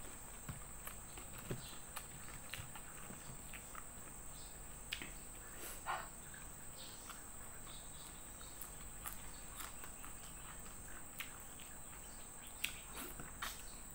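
Close-up eating noises: chewing and scattered small crisp clicks as fingers pick at fried salted fish and bring it to the mouth. A steady high insect drone runs underneath.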